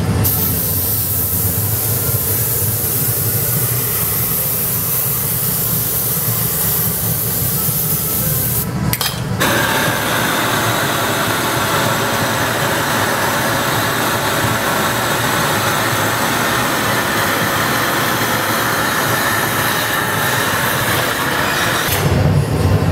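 Steady rushing noise of a glassblowing workshop's gas burners, the furnace and the torch flame heating the glass. The tone shifts abruptly about nine seconds in and again near the end.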